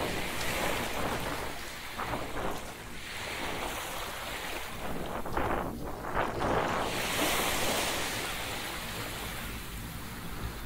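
Waves washing on a beach, with wind rushing over the microphone; the wash swells and ebbs, dipping about six seconds in and surging again just after.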